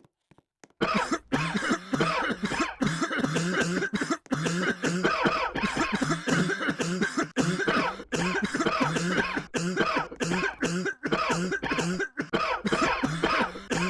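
Coughing over and over, many coughs crowded close together in a dense, unbroken run, starting about a second in.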